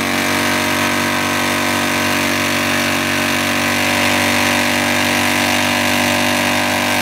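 Harley-Davidson touring motorcycle's V-twin engine held at steady revs through a burnout, its rear tyre spinning on a burnout pad. The engine note stays at one even pitch.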